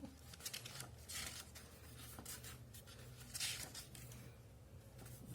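Paper rustling as the glossy pages of a K-pop album's photobook are handled and turned: a few short swishes, the loudest about a second in and about three and a half seconds in.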